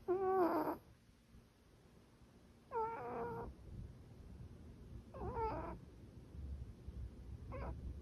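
Tabby cat snoring in its sleep: four pitched, wavering snores about two and a half seconds apart, one per breath. The first is the loudest and the last is short and faint.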